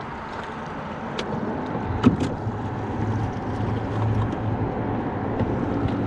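Steady wash of water and wind around a small inflatable boat, with a few sharp clicks one to two seconds in and a low hum for a couple of seconds in the middle.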